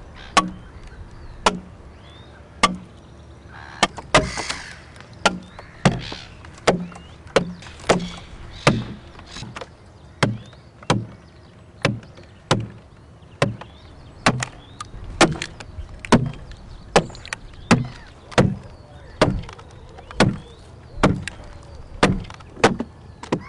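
Heavy blows hammering wooden wedges into a green log to split it lengthwise, a steady run of sharp knocks a little more than one a second.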